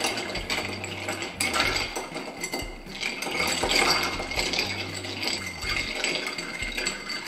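Ice cubes clinking and rattling against a cut-glass mixing glass as a metal bar spoon stirs a cocktail: a steady stream of quick glassy clinks.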